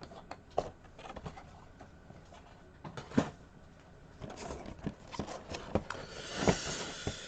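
Packaging and small plastic figures being handled: scattered clicks and taps, then denser rustling and crinkling for the last few seconds.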